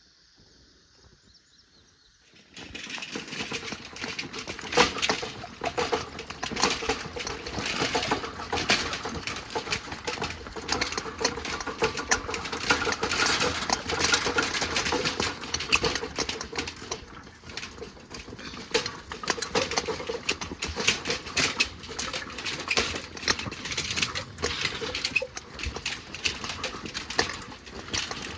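Water gushing from a hose and splashing into a stock trough, starting abruptly about two and a half seconds in and running on as a loud, uneven rush.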